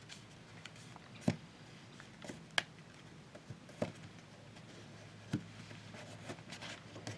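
Thick paper being folded and creased by hand: a few short, sharp crinkles and taps, about four spread over several seconds, over a faint steady hum.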